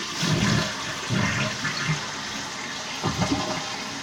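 1995 Vitromex Marathon toilet flushing: water rushing out of the tank and down the bowl in uneven surges.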